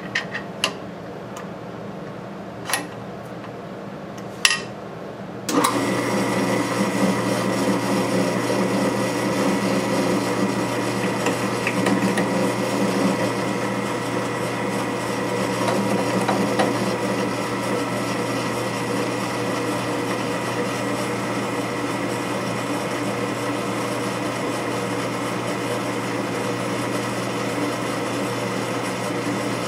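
A few light clicks, then about five seconds in a drill press starts and runs steadily, its twist bit cutting through a metal tube held in a vise.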